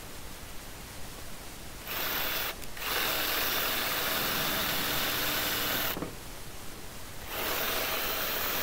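Cordless drill boring out spot welds in a Land Rover 109's steel rear-door frame, using a 3/16-inch (about 4 mm) bit ground flatter than normal so that it removes only the weld and not the second skin. It runs in two spells. The first starts about two seconds in, falters briefly and stops about six seconds in. The second starts again after a pause of about a second and a half.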